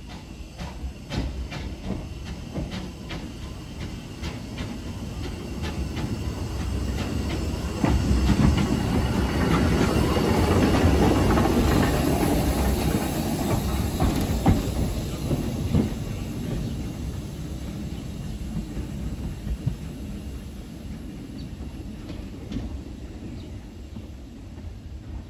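Hunslet Austerity 0-6-0 saddle tank steam locomotive moving slowly past, with a run of sharp clicks from its wheels on the track. It grows loudest as it passes close, about eight to fourteen seconds in, then fades as it moves away.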